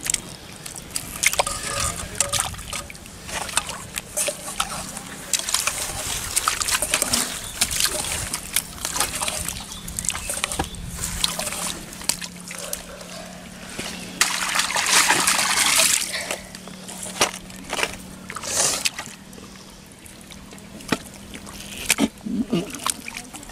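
Hands squelching and splashing in wet mud and shallow muddy water, with many short sloshes and slaps. There is a louder stretch of splashing about two-thirds of the way through.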